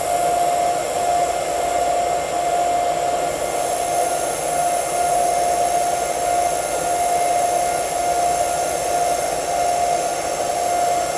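TIG welding arc running steadily on a vertical-up root pass, filler wire dipped into the puddle, making an even hiss with a constant mid-pitched tone through it.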